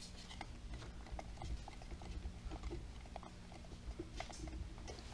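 Paint being stirred in a can: irregular light knocks and taps of the stir stick against the can, over a low steady electrical hum.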